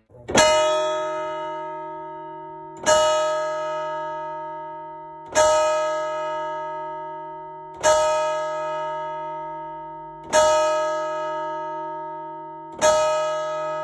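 Large bronze church bell of about a tonne and 122 cm across, struck by its hammer to ring the hour: six strokes about two and a half seconds apart, each ringing on and fading slowly until the next. These are strokes of the twelve that sound noon.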